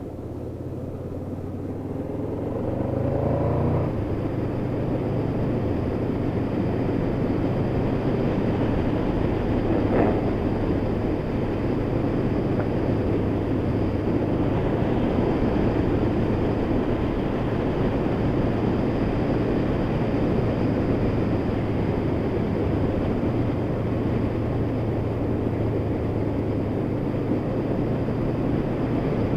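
Honda VFR800's V4 engine pulling with revs rising over the first few seconds, then running steadily at cruising speed under a constant rush of wind and road noise. A single short tap comes about ten seconds in.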